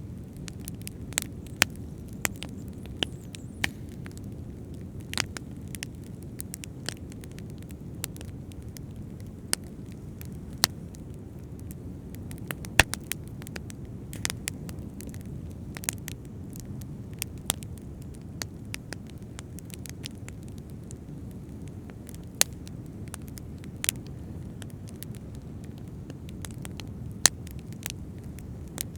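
Fire crackling with irregular sharp pops, over a steady low rush of ocean waves.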